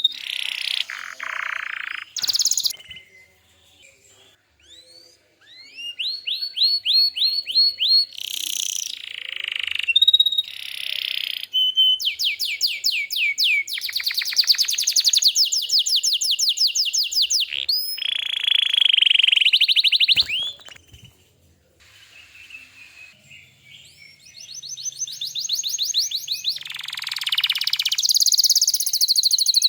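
Domestic canary singing: long, fast trills and rolls of rapidly repeated high notes, broken by two short pauses.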